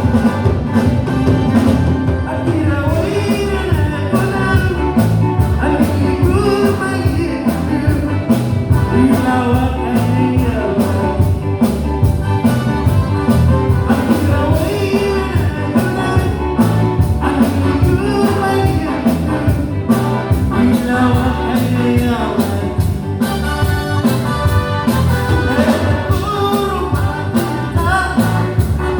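Live band music with a steady drum beat and a melodic lead line, partly sung.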